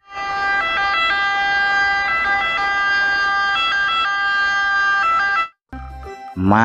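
Electronic ambulance siren from a toy ambulance's sound unit, a buzzy tone switching back and forth between two pitches. It cuts off suddenly about five and a half seconds in.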